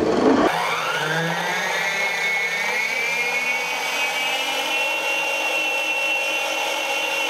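Planetary stand mixer's motor starting up and running as it beats batter, its whine rising in pitch as it speeds up over the first two or three seconds, then holding steady.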